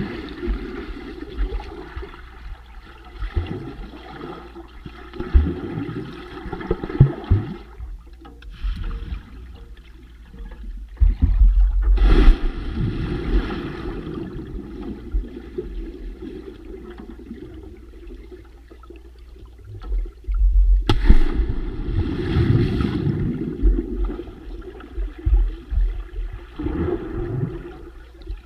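Muffled underwater rushing and bubbling of water heard through a submerged camera, with two louder surges of rushing bubbles, each a couple of seconds long, about a third and two-thirds of the way through.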